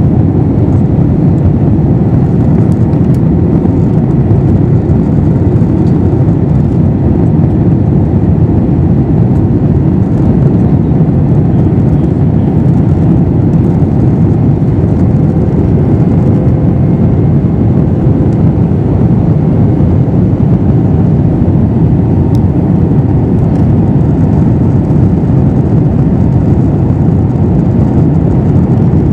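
Steady cabin noise inside an Airbus A321 with CFM56 engines, in flight: an even, low rush of engines and airflow with a faint steady hum, unchanging throughout.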